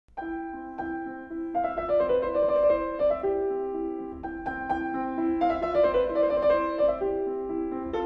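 Piano music: a melody of struck notes over held chords.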